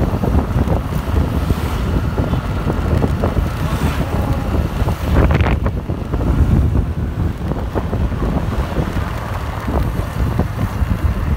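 Wind buffeting the microphone on a moving motorcycle, a steady low rumble with the bike's road noise underneath. A brief sharper noise cuts through about five seconds in.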